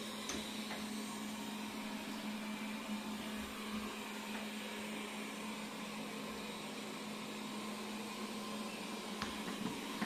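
Robot vacuum cleaner running across a carpet: a steady whirring hiss over a constant low hum, with a couple of light taps near the end.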